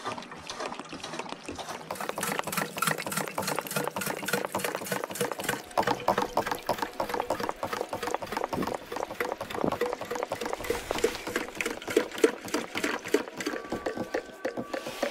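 Siphon pump transferring kerosene from a can into a kerosene heater's tank: a fast, continuous stream of small gurgling, rattling clicks as the fuel flows.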